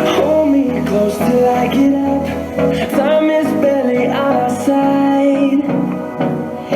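A song with a singing voice over a musical backing, played through a JBL Flip 4 portable Bluetooth speaker for a sound test.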